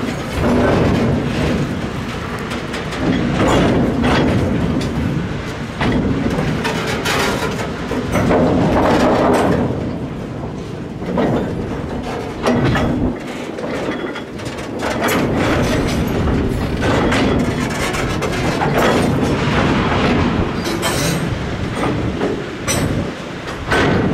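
A train of 900 mm narrow-gauge KF40 steel hopper wagons rolling past at close range, the wheels clattering over the rail joints. The clatter swells every two to three seconds.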